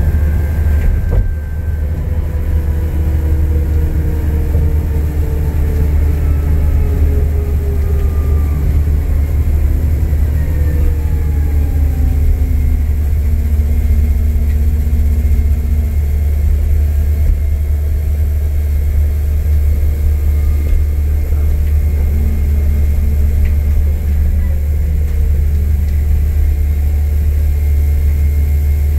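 Alexander Dennis Enviro400 MMC double-decker bus's diesel engine under way, a heavy steady low drone and rumble. Its pitch slowly falls through the first half as the bus eases off, rises again about two-thirds through, and falls once more near the end. There is a single sharp knock about a second in.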